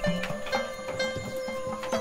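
Instrumental background music: a sustained high note over a short, repeating low melody.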